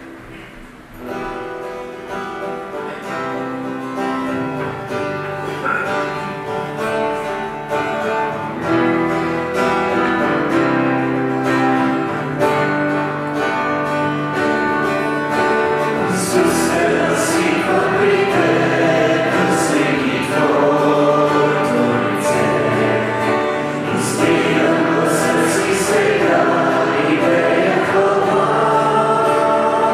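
Church worship song: acoustic guitars strumming while a group of voices sings. The music grows louder about a second in.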